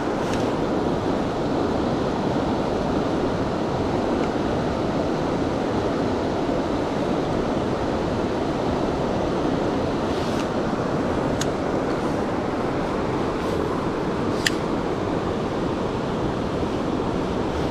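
Steady rushing of a fast mountain river, with a few faint sharp clicks in the second half.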